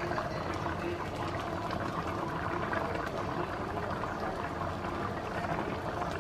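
Rice and black beans in their broth simmering in a frying pan, a steady bubbling and popping.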